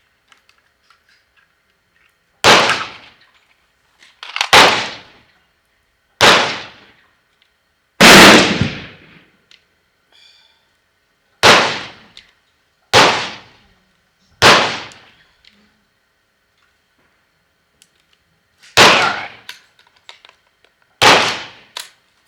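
Ruger 10/22-action semi-automatic .22 LR rifle firing single aimed shots, nine sharp cracks spaced about one and a half to three and a half seconds apart, each with a short ringing tail; the one about eight seconds in is the loudest.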